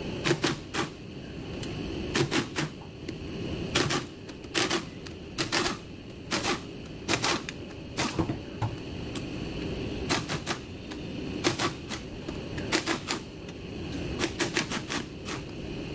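Hand ratchet clicking in short groups of a few clicks, every second or two, as bolts are worked loose on a Nissan CVT transmission case, over a steady low background hum.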